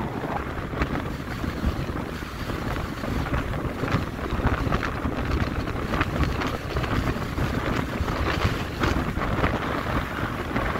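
Strong gusting wind blowing across the microphone: a steady rush of noise, heaviest down low, that swells and eases unevenly.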